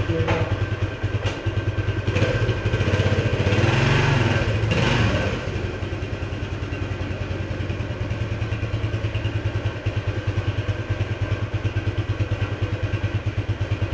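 Single-cylinder four-stroke engine of a 1976 Honda XL175 dirt bike running. Its revs rise and fall once, about two to five seconds in, then it settles back to a steady idle.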